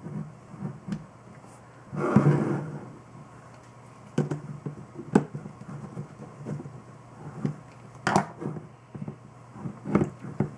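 Small clicks and knocks of screws being tightened into the tubing clamps on an all-in-one water cooler's pump block, with a louder scraping rustle about two seconds in.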